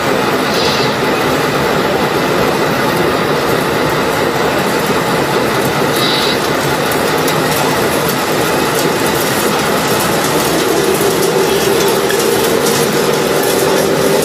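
Steady rattling rumble of a radio-controlled model trommel screen's drum turning as sand is tipped into its hopper from a model dump truck. A motor hum grows near the end as the truck pulls away.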